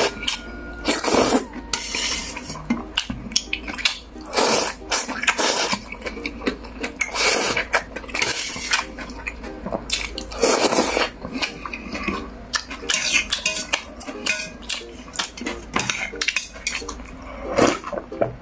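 Close-up eating of cold noodles in chilled soup: repeated short slurps and chewing, with utensils clinking against the bowl.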